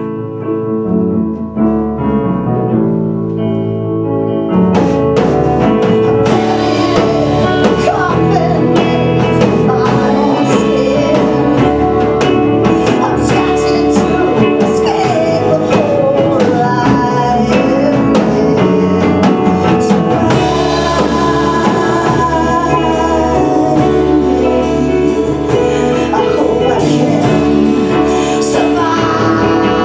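Live grunge rock band (electric guitar, bass, keyboard and drums) with a woman singing. The first few seconds are sparser and quieter, then the full band with drums comes in about four and a half seconds in.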